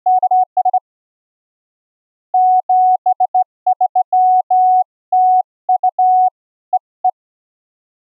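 Morse code (CW) sent as a single mid-pitched sine tone from a software CW keyer built as a modular synthesizer, keyed in dots and dashes. A short burst of code comes at the start, then after a pause of about a second and a half a longer run of characters stops about a second before the end.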